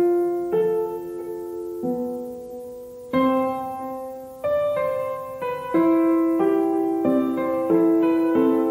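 Background music: slow piano, single notes and chords struck about once a second and a little faster in the second half, each one ringing and fading.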